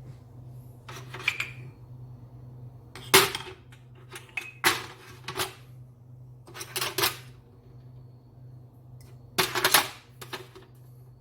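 Kitchenware being handled: several short bursts of clinking and clattering, like cups, jugs or metal parts knocked together, over a steady low hum.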